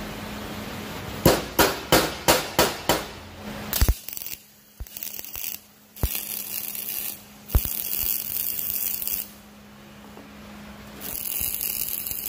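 MIG welder striking arcs on steel parts: runs of hissing arc noise one to two seconds long with short pauses between, starting about four seconds in. Before the welding, about six sharp taps come in quick succession, and a steady low hum runs underneath until near the end.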